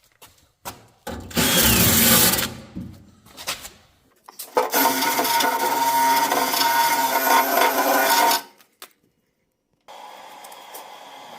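Power cutting tool biting into the Jeep's rusted steel body panel. It makes a short run of about a second and a half, then a longer run of about four seconds, with a steady motor whine through the grinding noise. A fainter steady hum starts near the end.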